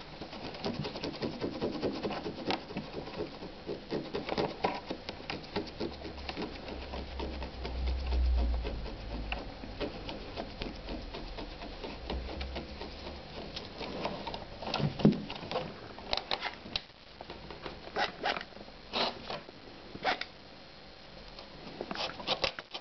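A white kitten purring close to the microphone, mixed with scratchy rustles and clicks of fur and fingers brushing against it.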